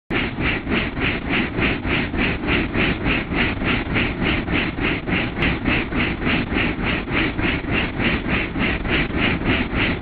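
Helicopter in flight: main rotor blades beating in a steady pulse a little under four times a second over a continuous engine and rotor rumble.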